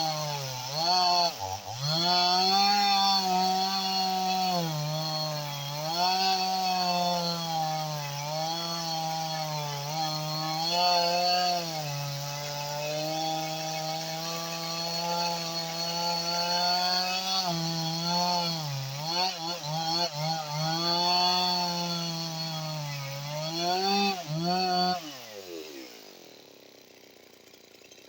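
Husqvarna 55 Rancher two-stroke chainsaw, with a newly fitted JK Sawshop cylinder and piston whose rings are not yet bedded in, running at high revs and cutting wood, its pitch dipping repeatedly as it takes load. About 25 seconds in the engine note falls away and stops.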